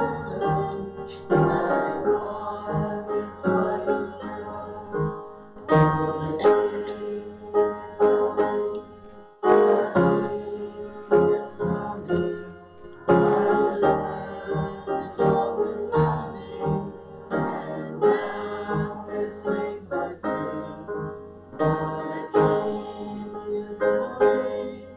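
Piano playing a hymn tune in struck chords, with a brief pause about nine seconds in.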